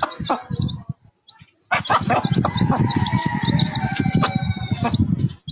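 Birds calling over a loud, clattering commotion that starts about two seconds in, after a few sharp clicks.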